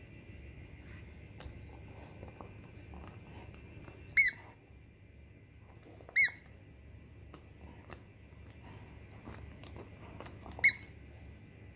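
Toy squeaker squeaking three times as a borzoi bites down on it while tearing apart a plush toy; each squeak is short and high-pitched.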